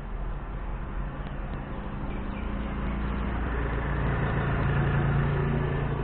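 A motor vehicle passing by: an engine hum over road noise that builds to its loudest about five seconds in, then starts to fade.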